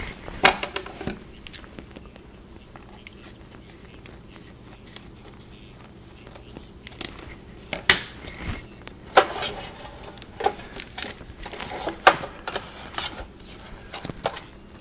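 Plastic freezer bag around a foamcore divider rustling and crinkling as it is handled and trimmed with scissors, with scattered clicks and taps. The sounds are sparse for the first few seconds and come thicker from about seven seconds in, with light knocks as the dividers are set into the metal pan near the end.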